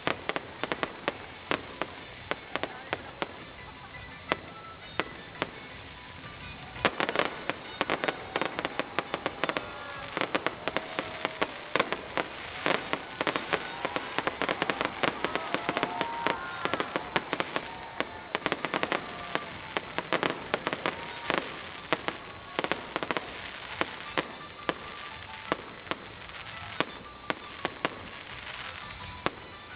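Aerial fireworks going off in a rapid, uneven series of sharp bangs and crackles, growing thicker about a quarter of the way in, densest through the middle and thinning near the end.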